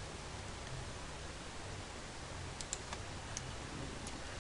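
A few faint computer keyboard clicks, mostly in the second half, over a steady microphone hiss and low hum.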